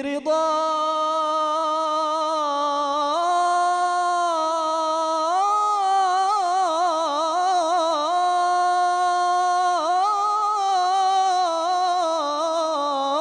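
A man singing an Egyptian Islamic ibtihal (religious supplication) unaccompanied, drawing out one syllable in a single long melismatic phrase. The pitch climbs in steps, then wavers in quick vocal ornaments before settling lower near the end.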